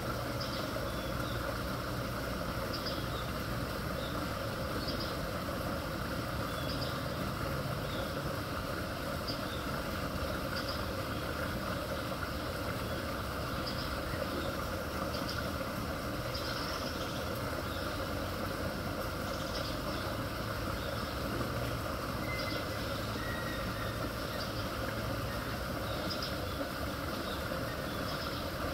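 Steady rushing and rumbling of floodwater draining into a curbside culvert pipe, with faint short high sounds every second or two.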